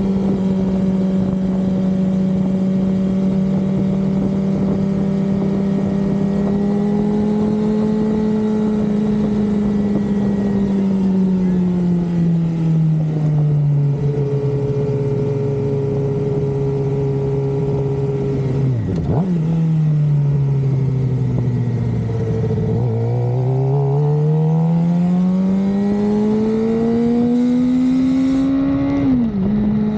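2023 Suzuki GSX-R600's inline-four engine under way: steady revs at first, dropping in pitch about a third of the way through as the bike slows. A quick blip comes about two-thirds in, then the revs climb steadily and fall sharply at a gear change near the end.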